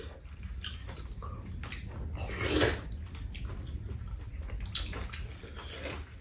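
Close-miked eating sounds of people eating fried rice and soup: soft chewing and wet mouth noises with a few light clicks of spoons and chopsticks, and one brief louder rush of noise about two and a half seconds in, over a steady low hum.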